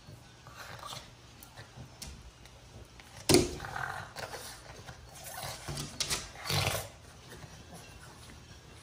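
Two Boston Terriers play-wrestling, growling and snarling at each other, with a sudden loud outburst a little over three seconds in and more growling bursts after it.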